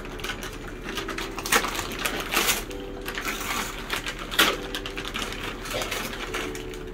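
Wrapping paper rustling and crinkling as presents are unwrapped, with a couple of louder sharp tears about a second and a half in and again past the middle.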